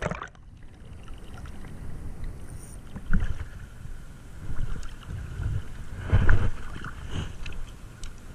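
Seawater sloshing and splashing around an action camera at the surface as a person wades chest-deep, with the camera dipping underwater at the start. Several heavier sloshes come through, the loudest about six seconds in.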